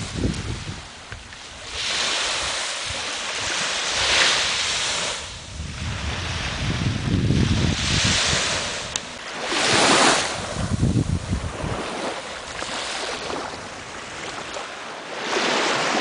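Small waves washing onto a sandy beach, the hiss swelling and fading every few seconds, with wind gusting across the microphone in low rumbles.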